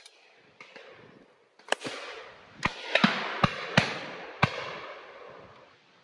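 Shotgun fire on a driven game shoot: a quick run of about six shots between about one and a half and four and a half seconds in, some close and loud, others fainter and further off, after a couple of faint distant shots near the start. The reports echo and die away over the last second or so.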